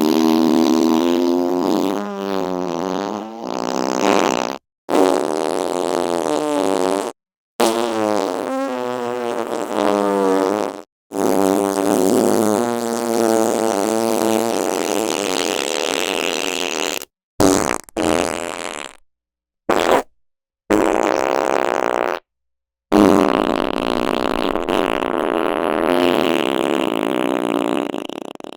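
A string of about nine fart sound effects played one after another, each a pitched, wavering fart cut off by a brief dead silence. Most last a few seconds; a few short ones come in the middle, and a long one comes near the end.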